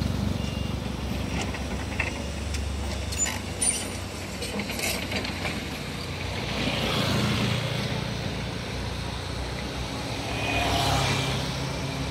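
Vehicle engines running, with road and construction-site motor noise; it swells twice as vehicles pass on the lane, and a few short clicks and knocks come between about two and five seconds in.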